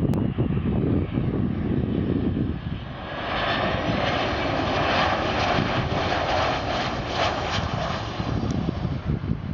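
Boeing 737-400's CFM56 jet engines on landing, a rush of engine noise that swells from about three seconds in and fades near the end, after a low rumble at the start.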